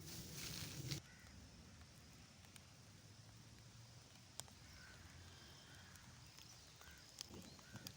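Quiet outdoor ambience: a faint steady hiss with a few short bird calls about halfway through and near the end, and occasional sharp clicks. A brief louder rush of noise comes in the first second.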